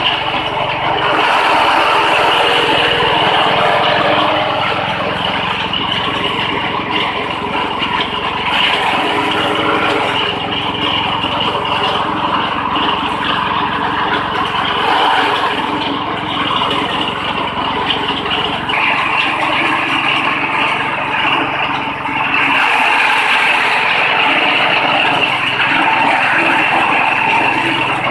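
Grass chopper driven by a 6.5 hp petrol engine, running steadily while its six-blade cutter chops grass fed in through its pull-in rollers. The low engine note shifts a few times.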